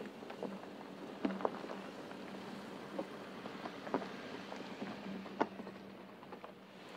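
2018 Porsche Cayenne Turbo driving slowly along a gravel track: tyres crunching over loose stones with scattered sharp clicks, over a steady low hum.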